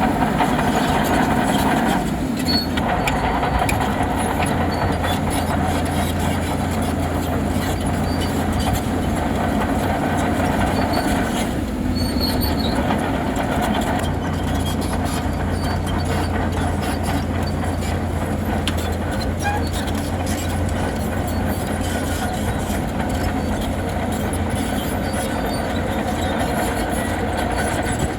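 Bulldozer working: its diesel engine running steadily, with the metallic clatter of its steel tracks.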